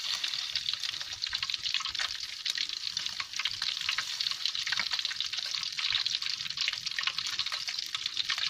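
Beaten egg frying in hot oil in a wok, the oil sizzling and crackling steadily.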